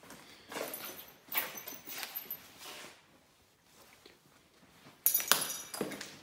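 Footsteps on a hard hallway floor strewn with debris, four steps about half a second apart, then a pause. About five seconds in comes a louder sharp scrape or knock with a thin high edge.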